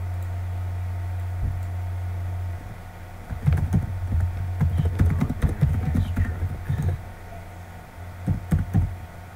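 Typing on a computer keyboard: a quick run of key clicks, then a few more keystrokes near the end. A steady low hum stops about two and a half seconds in.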